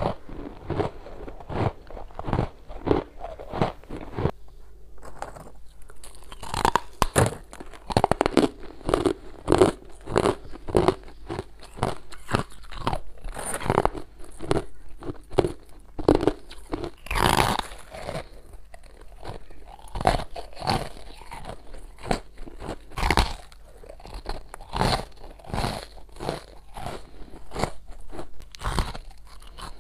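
Close-miked biting and chewing of hard freezer frost chunks: a steady run of sharp, repeated crunches, several a second, as pieces are bitten off and ground between the teeth.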